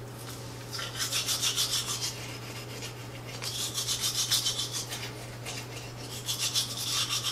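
Manual toothbrush scrubbing teeth in quick, even back-and-forth strokes, in three bouts with short pauses between, over a low steady hum.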